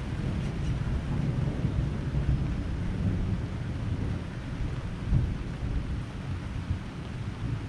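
Thunderstorm: a low rumble of thunder slowly dying away over steady rain, with a small swell about five seconds in.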